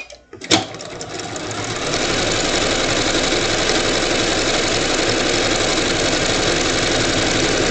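Electric sewing machine stitching a seam: a couple of sharp clicks at the start, then the motor builds up speed over the first two seconds and runs steadily fast.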